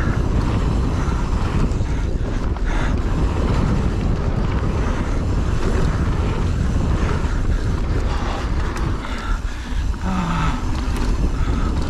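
Mountain bike descending a rough trail at speed: steady wind rush on the microphone, with tyre noise and the bike clattering over the ground.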